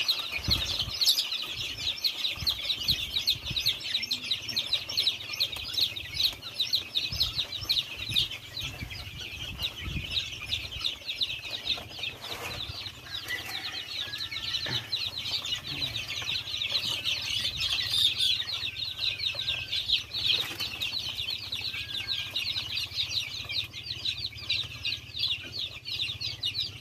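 A brood of young chicks peeping without pause, many high chirps overlapping. Soft low knocks come in the first ten seconds or so.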